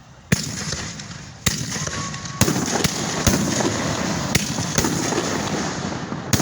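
Fireworks going off: a string of sharp bangs, about eight in six seconds at uneven gaps, with continuous crackling between them.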